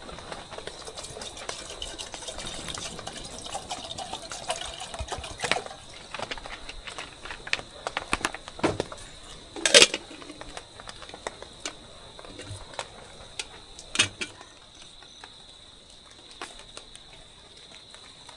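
Irregular clicks, taps and rustles of movement through wet forest undergrowth, over a steady high insect drone; the sharpest crack comes about ten seconds in.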